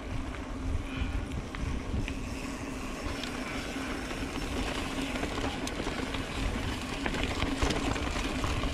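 Mountain bike rolling over a rocky dirt trail: tyre noise with scattered clicks and rattles and a steady hum, over a deep wind rumble on the microphone.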